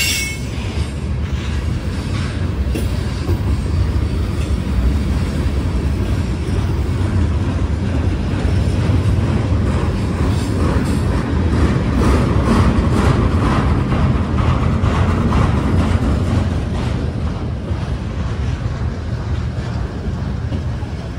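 Freight train of tank cars and flatcars rolling past, a steady low rumble of wheels on rail, with a run of regular wheel clicks over the track in the second half.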